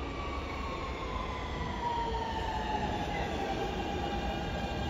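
R160 subway train with Siemens AC propulsion braking as it arrives, its traction motors giving a whine that falls steadily in pitch, over a low rumble of wheels on rail.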